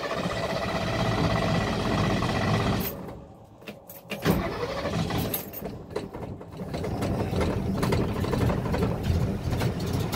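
1964 Ford Fairlane engine with headers and a Holley carburettor being started. It runs for about three seconds and dies, then catches again with a sharp start about four seconds in and keeps running, getting louder near the middle. Its sound makes the owner think it may have a performance cam.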